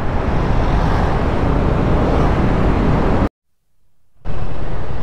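Riding noise from a Yamaha Aerox scooter on the move: engine and rushing wind-and-road noise over a helmet-mounted microphone. It drops out to silence for about a second a little after three seconds in, then resumes.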